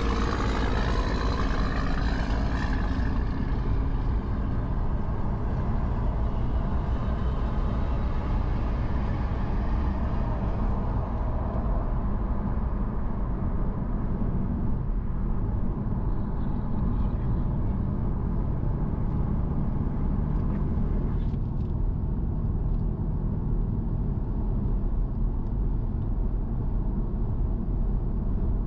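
Steady road and engine rumble of a car cruising on a highway, with tyre hiss, heard from inside the moving car.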